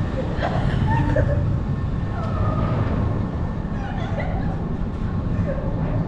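Eli Bridge Scrambler amusement ride running at speed: a steady, dense low mechanical rumble from the spinning ride, with short high pitched sounds scattered over it.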